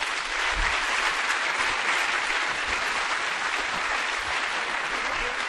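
Audience applauding, a dense steady clapping that builds up and holds.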